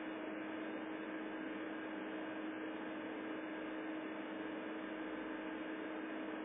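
Steady hiss with a constant low hum underneath, unchanging throughout, with no distinct events.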